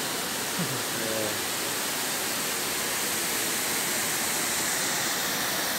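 Water spilling over a small irrigation dam's weir: a steady, even rush.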